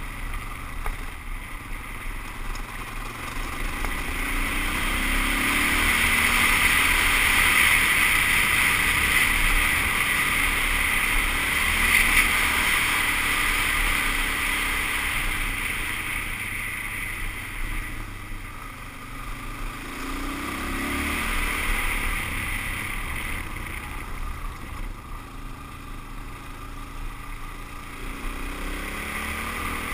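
Suzuki DR-Z400S dual-sport motorcycle's single-cylinder four-stroke engine running under way, its pitch rising and falling with the throttle, under a steady rush of wind on a helmet-mounted microphone that swells louder through the middle stretch.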